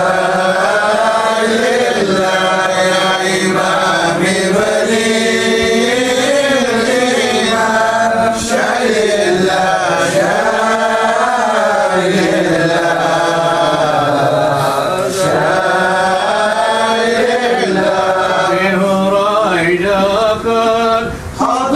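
A man's voice chanting an Islamic devotional hymn in long, drawn-out melodic phrases, unaccompanied and amplified through a microphone.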